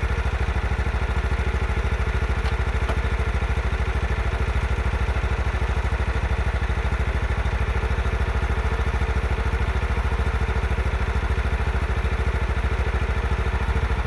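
The 16 hp engine of a John Deere tractor running steadily with an even beat, now starting and running after its carburetor was cleaned of water and dirt and its fuel line was replaced.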